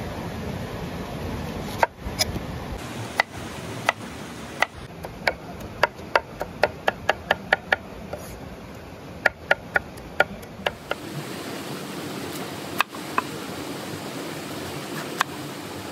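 A cleaver chopping a red onion on a wooden cutting board: sharp knocks of the blade on the wood, a few spaced strokes, then quick runs of about three chops a second through the middle, thinning to a few single cuts near the end, over a steady background noise.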